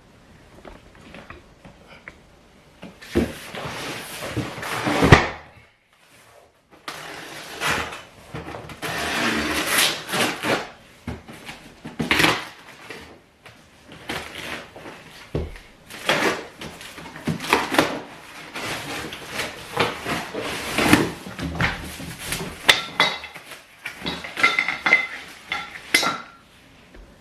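Cardboard furniture box and its packing being handled and opened: irregular rustling and scraping with many knocks and clicks, the loudest about five seconds in.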